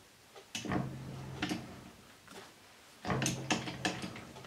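Metallic clicks and clunks as the stopped lathe's four-jaw chuck is gripped and turned by hand, in two short bouts, one about half a second in and one about three seconds in.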